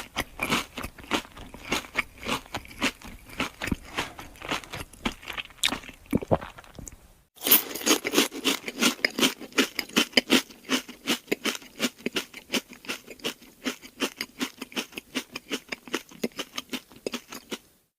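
Close-up crunching and chewing of crisp food, a sound-effect recording. It breaks off about seven seconds in and a second, louder take follows with rapid crunches, several a second.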